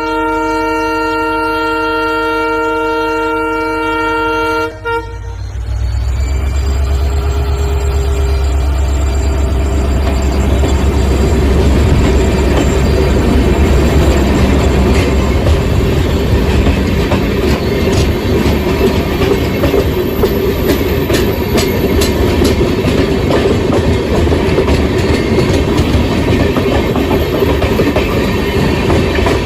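Train horn sounding one long steady blast for about five seconds and cutting off sharply. A train running follows, with a steady heavy rumble and wheel clatter.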